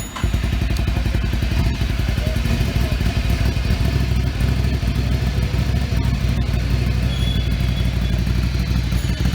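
Ducati Monster 797's air-cooled 803cc Desmodromic L-twin idling steadily through an aftermarket exhaust, its loud, even idle coming in abruptly just after the start.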